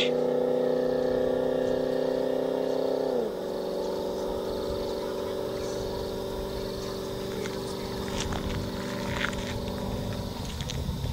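Holden VK Commodore's 5.0-litre V8 through a 3-inch exhaust, heard from a distance as the car pulls away: a steady droning note. About three seconds in it drops sharply in pitch as the car changes up a gear, then holds steady at the lower pitch and grows fainter near the end.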